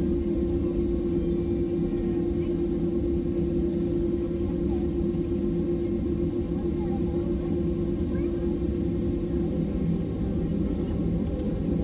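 Cabin noise of a Boeing 767-300 taxiing: the engines at low taxi power give a steady low rumble with a constant hum, heard from inside the cabin. The hum fades near the end.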